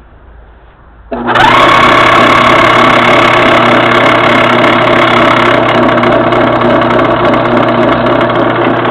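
Craftsman Dunlop 109 metal lathe switched on about a second in, its motor and drive coming up to speed almost at once and then running steadily with a hum and a whine, the lathe turning after its headstock was reassembled.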